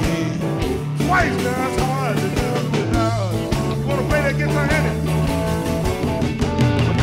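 Electric blues band music: a steady bass line under a lead line that bends and slides in pitch.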